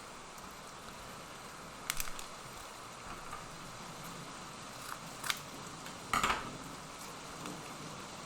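Trading cards being handled: a few short rustles and clicks about two, five and six seconds in, the last the loudest, over a steady background hiss.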